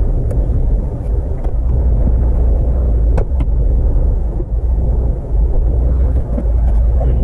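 A van's engine running as it warms up in the freezing cold, a steady low rumble with a few faint clicks over it.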